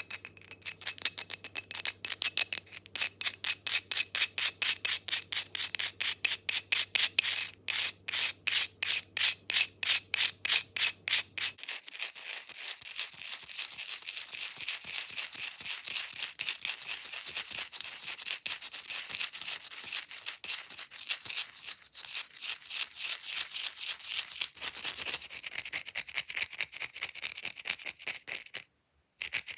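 Fake fingernails scratching fast on an object: distinct rhythmic strokes at about three a second, changing about 12 seconds in to a denser, continuous scratching. The sound cuts out for a moment near the end.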